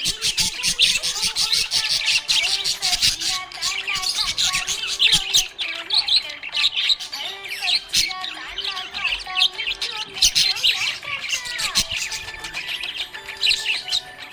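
A flock of small parrots chirping and squawking nonstop: a dense stream of rapid high chirps with lower warbling calls woven underneath.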